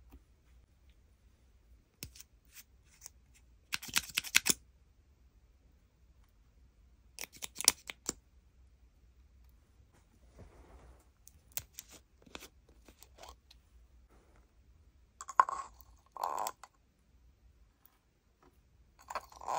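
Makeup applicators and containers handled over clear slime: a few separate bursts of small crisp clicks, taps and scrapes, the loudest about four and eight seconds in.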